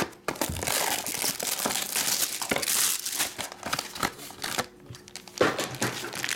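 Trading-card box packaging being torn open and crinkled by hand: the cardboard box pulled apart and the black plastic bag inside handled, a dense crackle that thins out to scattered crinkles about two-thirds of the way through.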